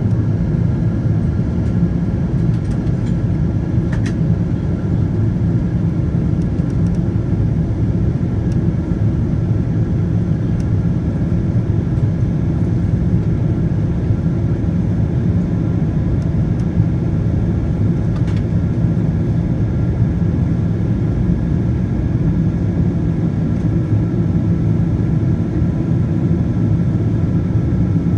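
Steady low rumble of a Boeing 777-200ER cabin in flight: the GE90 engines and airflow noise heard from a window seat beside the engine, with a faint steady whine above the rumble.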